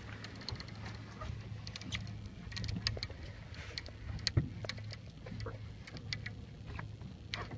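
Boat engine idling in neutral, a steady low hum, with scattered light clicks and taps over it.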